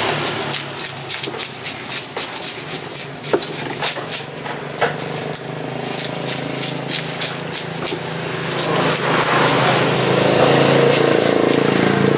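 A large knife chopping and tapping on a wooden chopping block as a fish fillet is sliced, a run of sharp knocks with two louder ones near the middle. About two-thirds of the way in, a steady engine hum starts rising and becomes the loudest sound.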